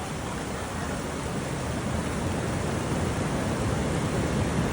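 Steady rush of water from the water ride, a constant noisy wash that grows slightly louder toward the end.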